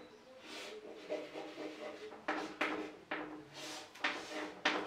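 Chalk scratching on a blackboard in a series of short, separate strokes while lines and a small zigzag are drawn.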